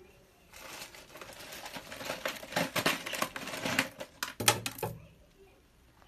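Close rustling and crackling with many scattered clicks, from about half a second in until about five seconds: hands and a fabric sleeve brushing and working synthetic hair right by the microphone.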